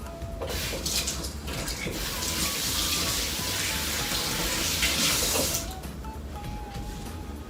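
Kitchen tap running into a sink for about five seconds, then turned off.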